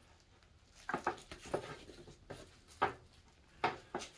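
Scattered light taps and knocks, about seven in four seconds, from the track saw's power cord being handled.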